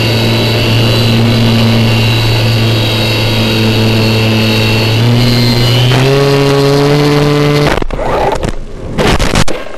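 Electric motor and propeller of an RC flying wing, heard through its onboard FPV camera, running at a steady pitch and then rising in two steps as the throttle goes up. The motor cuts out near the end, followed by a few loud scrapes and bumps as the plane comes down among brush and trees.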